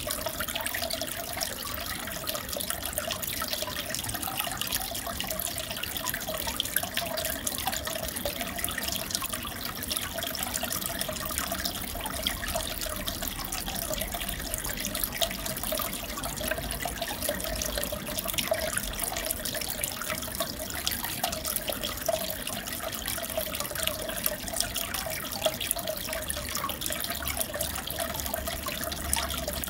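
Aquarium water bubbling and trickling steadily, with a constant fine crackle of small bubbles.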